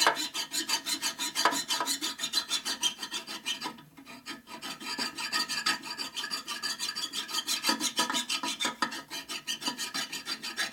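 Hand file rasping back and forth across a metal engine bushing surface, knocking down a high spot, in quick repeated strokes with a short pause about four seconds in. The file is still biting and cutting metal.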